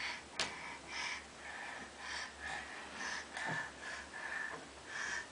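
A baby's short breathy huffs and snorts, repeating a few times a second, with one sharp click about half a second in.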